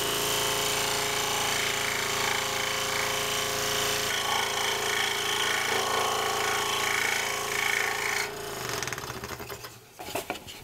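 Scroll saw running and cutting a wooden board along a circular line, a steady machine sound. About 8.5 seconds in it is switched off and winds down, stopping about a second later.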